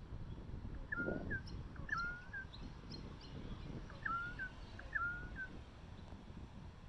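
A currawong making soft, cute whimpering calls while begging for food: four short calls in two pairs, each a quick falling note followed by a brief tail note.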